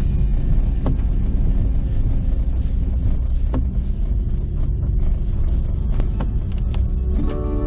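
Car driving: a steady low rumble of road and engine noise, with scattered sharp clicks and knocks. Music comes back in near the end.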